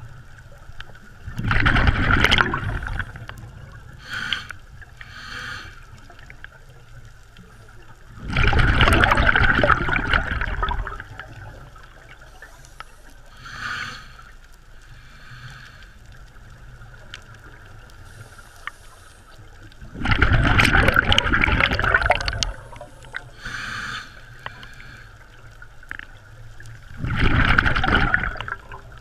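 Scuba breathing heard underwater through the regulator: four loud rushes of exhaled bubbles, each lasting two to three seconds, with short, fainter hisses of inhaled air between them.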